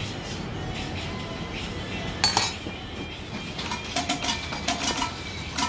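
Metal cooking utensils clinking against a red bean cake griddle: one sharp clink about two seconds in, then a quick run of ringing clinks near the end, with music in the background.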